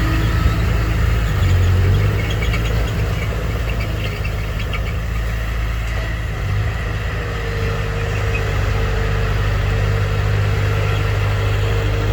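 Komatsu bulldozer's diesel engine running steadily, a deep continuous drone, with a faint rapid ticking for a few seconds near the start.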